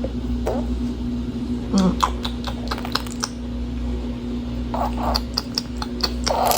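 Irregular light taps and clicks on a baby's high chair tray during feeding, coming in two clusters, over a steady low hum.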